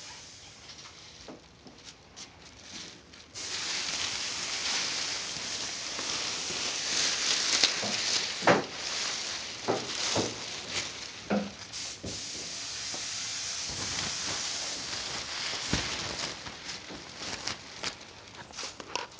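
Spray paint hissing in a long steady spray that starts abruptly a few seconds in, with scattered rustling and knocks from handling over it.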